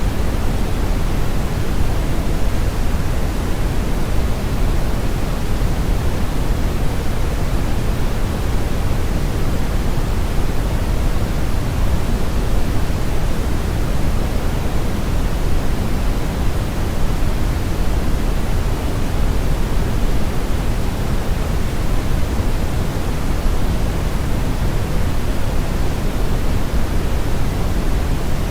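Synthetic brown noise blended with white noise: a steady, unchanging rush, heaviest in the low end with a fainter hiss above.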